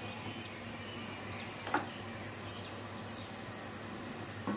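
Steady low background hiss with a few faint, short high bird chirps and one soft knock near the middle.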